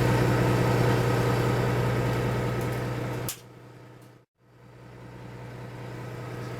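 Lobster boat's engine running with a steady low drone. About three seconds in it drops away abruptly, goes silent for a moment, then fades back in.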